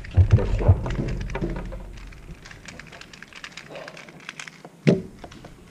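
Room noise: a murmur of voices for the first second or two, then scattered small clicks and a single sharp thump about five seconds in.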